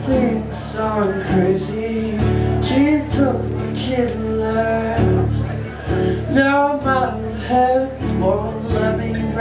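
Live acoustic music: two acoustic guitars strummed and picked, with a man singing over them.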